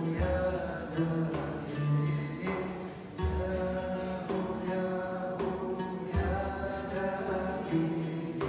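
Sufi devotional chant: voices singing long held notes over a plucked lute, with a deep beat about every three seconds from the large frame drum.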